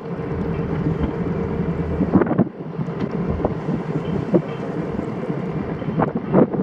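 Steady low engine hum with wind buffeting the microphone, gusting briefly about two seconds in and again near the end.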